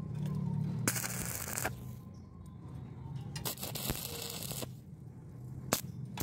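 Stick-welding arc crackling in two short bursts of about a second each as tack welds are struck on angle iron, then a sharp click near the end. A steady low hum runs underneath.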